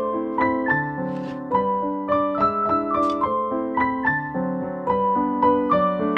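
Background piano music: a gentle melody of single notes over soft chords, at a steady, unhurried pace.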